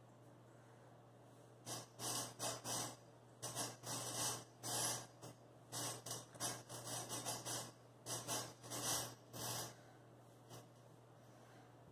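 A man swinging, flipping and doing pull-ups on a guy-wired horizontal bar. It makes a quick series of short rasping bursts that start about two seconds in and stop near ten seconds.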